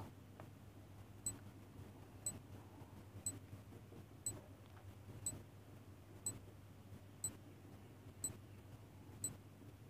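Countdown timer sound effect ticking: short, sharp clock ticks, one a second, about nine in a row.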